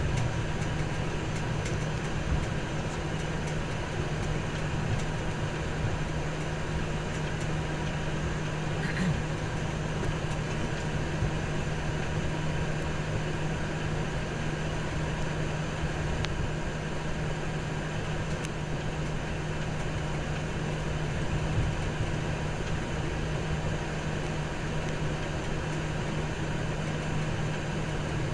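Steady, unchanging drone of airport ground machinery during an aircraft tow: a low hum with a fainter higher tone over an even hiss.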